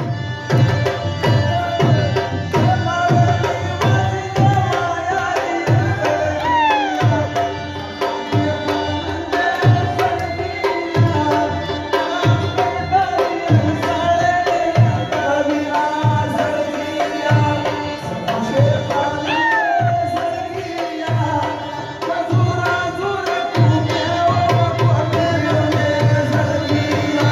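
Attan dance music: a drum beats a steady, driving rhythm under a melody with sliding notes.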